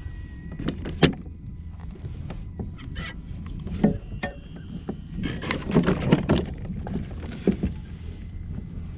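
Hollow knocks and clatter of gear against a kayak, busiest about five to six seconds in, over a steady low rumble of wind and water.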